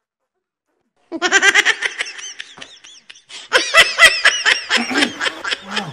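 Laughter: quick repeated 'ha' pulses that start about a second in, with a louder run of laughing about three and a half seconds in.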